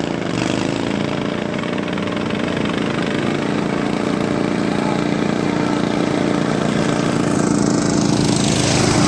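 Engines of two pulley-swapped riding lawn mowers running steadily during a drag race, growing louder over the seconds as they come closer.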